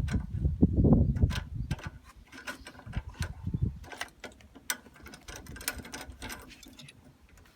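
Irregular clicks, clanks and knocks of hand tools and metal parts being worked, with a low rumble and heavier knocks in the first two seconds.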